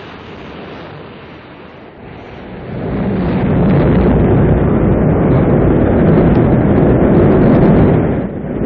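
Rocket engines at ignition and liftoff: a loud, low, steady noise that swells about three seconds in and stays loud, with a brief dip near the end.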